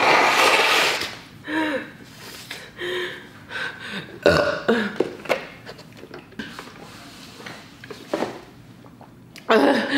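A woman blowing her nose hard into a tissue, then a string of short sniffs, gasps and strained vocal sounds as she reacts to the burn of extremely spicy fire noodles. There is a sharp short burst about four seconds in, and a louder vocal sound near the end.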